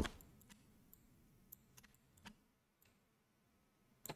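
Faint clicks of a computer mouse and keyboard over near silence: about half a dozen single clicks spread out, with two close together near the end.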